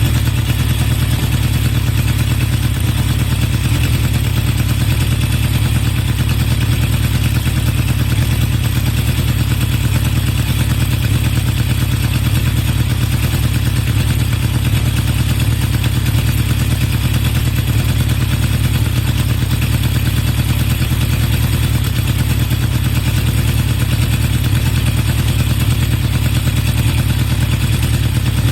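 Honda CB750 Four K3's air-cooled inline four-cylinder engine idling steadily through HM341 mufflers with modified baffles. The carburetor sneeze is largely cured: an insulator air leak was suspected, and a float level found too high in the #3 carburetor was reset.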